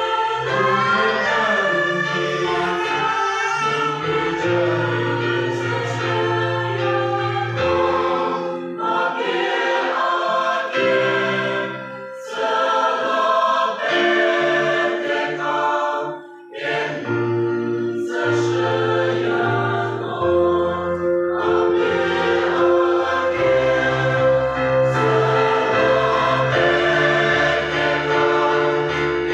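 Mixed choir of men's and women's voices singing a hymn together, with sustained low notes underneath; the singing dips briefly about twelve seconds in and again around sixteen seconds.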